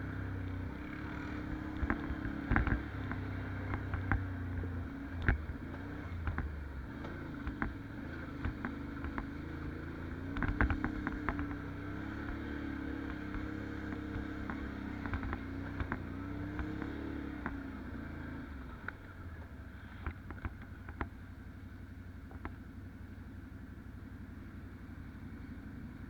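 Can-Am 570 ATV's V-twin engine running on the trail, its note rising and falling with the throttle, with scattered knocks and clatter from the ride. The engine note drops away about two-thirds through, leaving a low rumble and occasional knocks.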